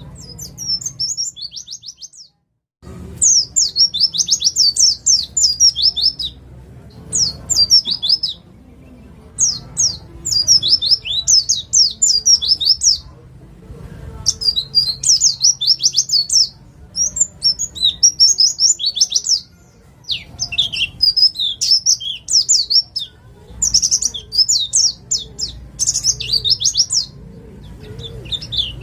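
A white-eye (pleci) singing its rapid 'nembak' song: fast runs of high, sweeping chirps in phrases of one to three seconds, separated by short pauses. A low hum runs underneath.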